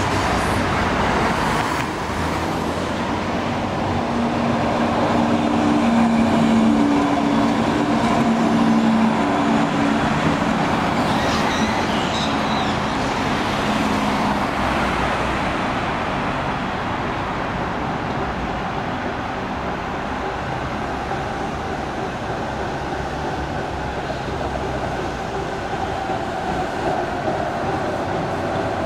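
Trams and road traffic on a city street: a modern low-floor tram's steady electric motor hum during the first half, then a steady rolling noise of wheels on rails and road traffic as trams approach.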